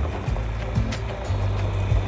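Background music with a deep bass line that shifts to a new note a little past halfway.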